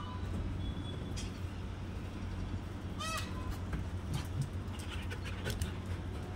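A short honk-like animal call that rises and falls in pitch, heard at the start and again about three seconds in, over a steady low rumble.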